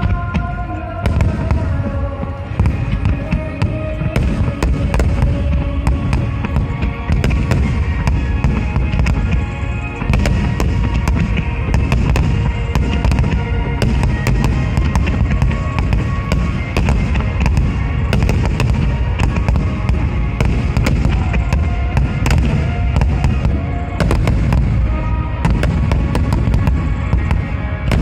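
Large aerial fireworks bursting in a dense, continuous barrage, sharp cracks over a deep rolling rumble, with the show's accompanying music playing beneath.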